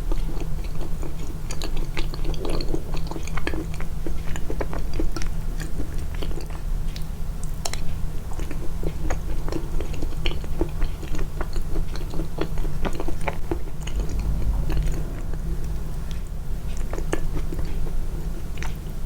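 Close-miked chewing: a person biting and chewing food with many small wet mouth clicks and crackles, over a steady low hum.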